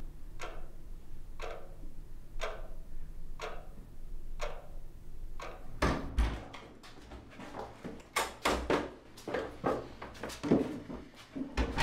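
Quartz wall clock ticking once a second. About halfway the ticking gives way to a run of irregular, louder knocks and clatter as a door opens and someone comes in.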